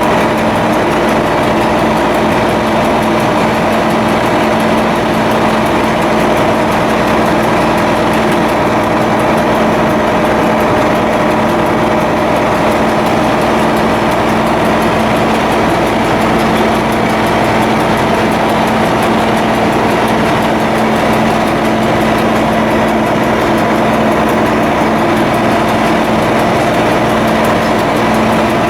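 Ship's diesel engine running steadily: a constant, loud machinery hum with two steady tones and no change in speed.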